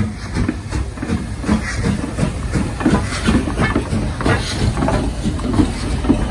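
LMS Black Five 4-6-0 steam locomotive 45407 passing close by at slow speed, its exhaust chuffing in a regular beat of about three a second over the hiss of escaping steam and the rumble of its wheels on the rails.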